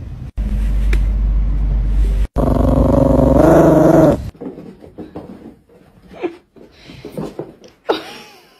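An air blower runs with a rush of air and a low rumble for about four seconds, briefly cutting out in the middle, while a Yorkshire terrier growls over it with a wavering pitch in the second half. Then the sound drops to a few soft, short noises.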